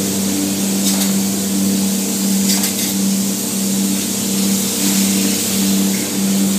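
Spray foam gun hissing steadily as it sprays expanding insulation foam, over a steady machine hum with a tone that pulses on and off. A couple of faint clicks come through.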